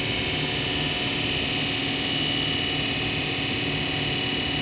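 DC motor running with a steady high-pitched whine over a broad rushing noise: the abnormal noise of its carbon brushes in contact with the commutator.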